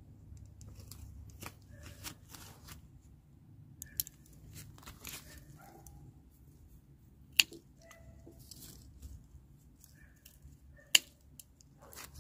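Scissors snipping purple snap pea pods off the vine: several short snips, the two loudest about seven and eleven seconds in.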